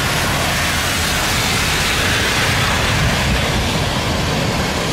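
Airbus A320-family airliner rolling down a rain-soaked runway: a loud, steady rush of jet engine noise and tyre spray, blended with heavy rain.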